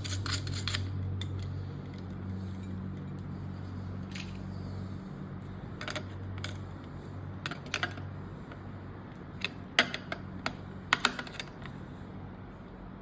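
Scattered small metal clicks and taps as lamp base parts and a screw are fitted and tightened by hand, over a steady low hum.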